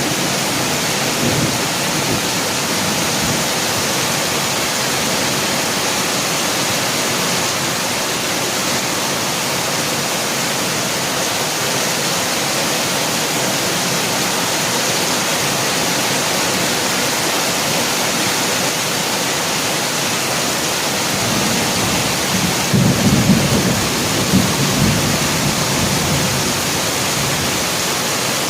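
Heavy rain falling steadily, with a low rumble of thunder rolling through about three-quarters of the way in.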